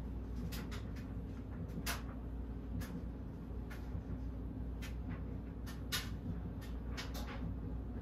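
Banvil/Envirofan Silver Line industrial ceiling fan running, a steady low motor hum with about a dozen sharp clicks scattered irregularly through it.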